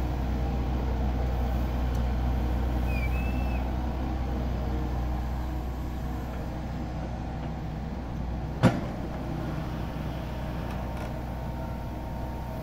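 A steady low vehicle rumble, with one sharp click about two-thirds of the way through.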